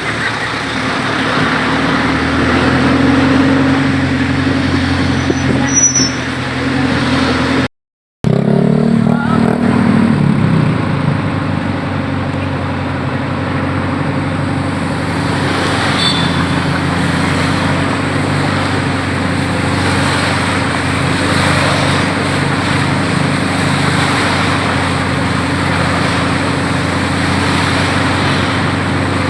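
Road traffic: motor vehicle engines running steadily with road noise. The sound cuts out briefly about eight seconds in.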